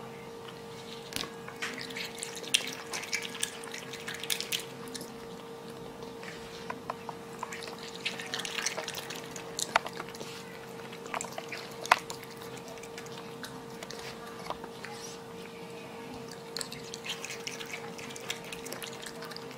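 A raccoon chewing juicy grapes: wet clicking and smacking that comes in three spells, with a few sharper single clicks. A steady hum runs underneath.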